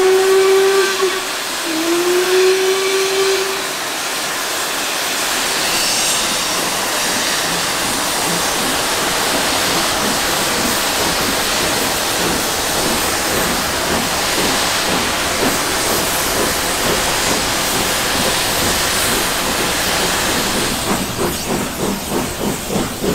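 Two LMS steam locomotives double-heading a train: a short whistle blast, then a longer one, slightly rising, followed by steady hissing steam and exhaust as the train pulls away. Distinct regular exhaust beats come through near the end.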